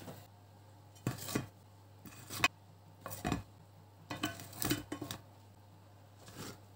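Wooden spatula knocking and scraping against a baking tray and a ceramic plate as baked buns are lifted and set down: several separate short clatters, a few seconds apart.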